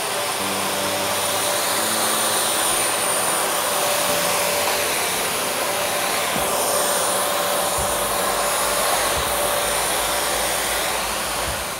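Samsung SC4130 1600-watt canister vacuum cleaner running steadily: a rush of air with a thin, high motor whine held at one pitch.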